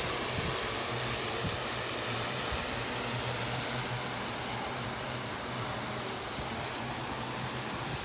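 DJI Agras agricultural spraying drone flying, its rotors making a steady hum under a steady hiss.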